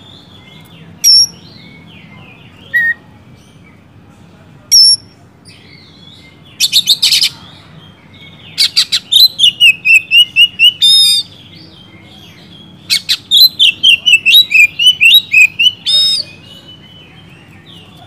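Oriental magpie-robin singing loudly: a few single sharp calls, then two long runs of rapid loud notes woven through a warbling phrase.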